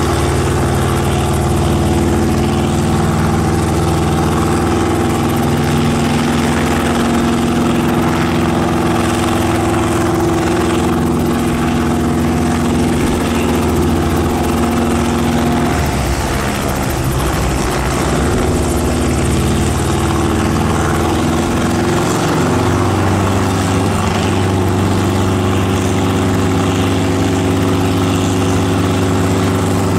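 Enstrom F-280FX helicopter's four-cylinder piston engine and main rotor running on the ground, a steady engine note. About halfway through the note wavers, and it settles at a new pitch a few seconds later.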